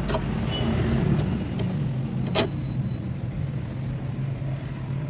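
A steady low engine-like hum, with one sharp metallic clink about two and a half seconds in.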